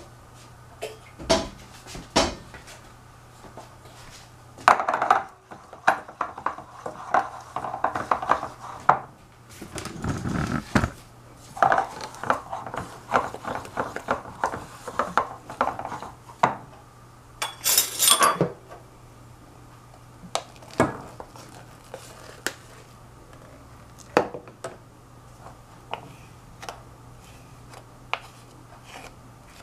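A wooden spoon stirring and scraping thick melted white chocolate in a stainless steel saucepan, with a metal spoon clinking and knocking against the pan as whipped cream is spooned in. One louder clatter comes a little past halfway.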